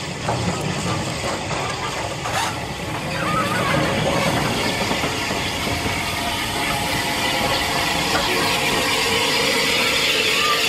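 Steam hissing steadily from an unrebuilt Bulleid Battle of Britain class steam locomotive standing close by, a rushing noise that grows louder about three and a half seconds in and then holds.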